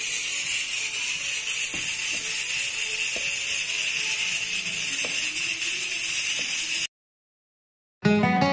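A steady, high kitchen hiss with a few faint taps of potato pieces being set in an aluminium roasting pan; the hiss cuts off about seven seconds in, and acoustic guitar music starts near the end.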